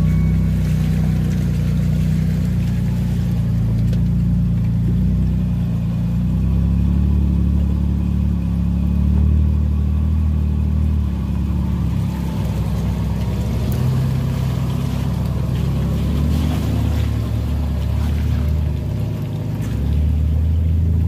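Pickup truck engines, a Toyota Tacoma's and a Nissan Frontier's, running at low speed as the trucks crawl along a muddy off-road trail. A low rumble swells near the end as the Tacoma pulls past close by.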